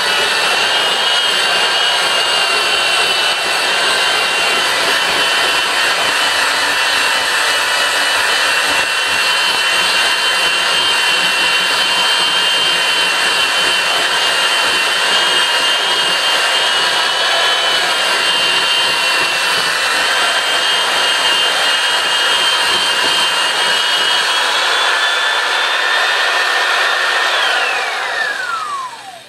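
Heavy electric power drill running steadily against the grout of a tile mosaic to scour off grout film, its motor whine wavering slightly under load. Near the end the trigger is released and the whine falls steeply as the motor spins down.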